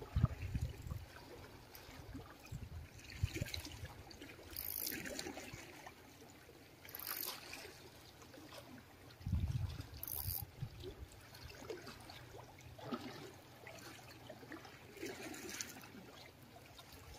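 Small sea waves lapping and sloshing faintly against the concrete blocks of a breakwater, rising in a few uneven swells, with a couple of low rumbles of wind on the microphone.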